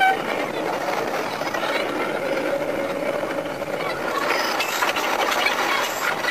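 A Sanriku Railway 36-200 series diesel railcar running, its sound sped up fivefold into a fast, dense mechanical clatter of engine and wheels on rail. It passes into a tunnel. A brief high tone sounds right at the start.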